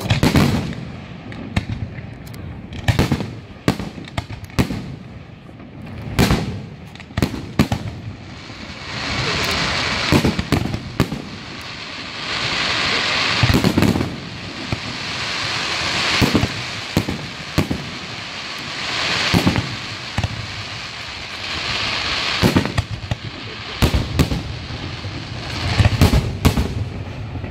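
Aerial fireworks display: shells bursting in a rapid series of sharp bangs, with several stretches of dense crackling lasting a second or two each through the middle of the display.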